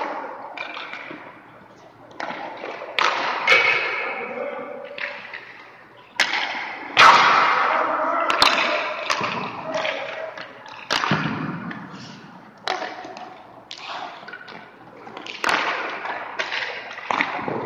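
Ice hockey goalie drill: a dozen or so sharp cracks and thuds of sticks striking pucks and pucks hitting pads, boards or net, with skates scraping on the ice, echoing around the rink.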